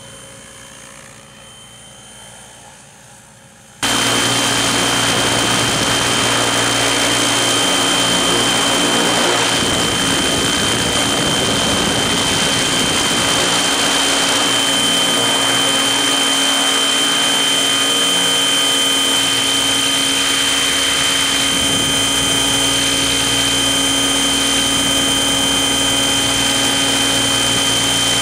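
Logo 600SE electric radio-controlled helicopter: faint rotor and motor noise at first, then, about four seconds in, a sudden jump to loud, steady rotor and motor noise close to the microphone with a steady high whine, holding unchanged.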